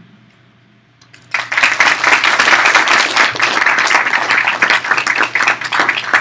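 Audience applauding: clapping from many hands breaks out about a second in and carries on steadily, individual claps standing out more near the end.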